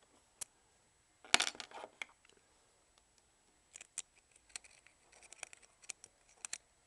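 Small metallic clicks and scrapes of an Allen key and a tiny screw being worked into a paintball marker's grip frame, with one louder clatter about a second and a half in. The screw is not catching its thread.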